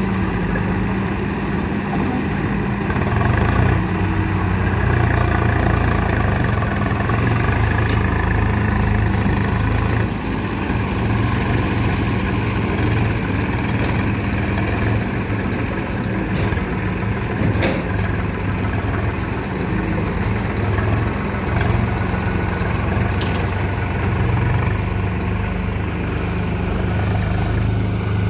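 Heavy diesel engines of a JCB backhoe loader and a tractor running steadily, a little louder for a few seconds near the start. A sharp knock or clank stands out partway through.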